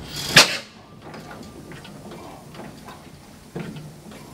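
Scattered metallic clicks and knocks from hands working the controls of a 1928 Modaag D4 stationary diesel engine that is not yet running, with one loud sharp noise about half a second in and a knock near the end.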